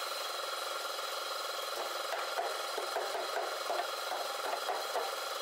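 Irregular scraping and rubbing from hand work on a wooden sofa frame strung with zigzag springs. It begins about two seconds in, over a steady background hum.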